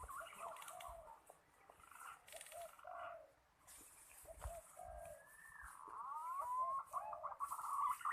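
Birds calling: many short arching whistled notes overlapping throughout, joined by rising and falling gliding whistles in the last couple of seconds, over a steady high hiss.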